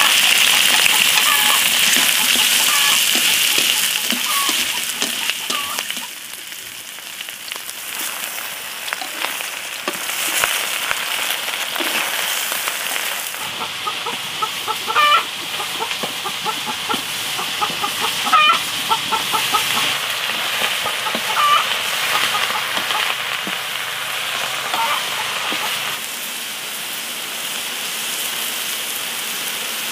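Chickens clucking in short calls now and then over a steady hiss.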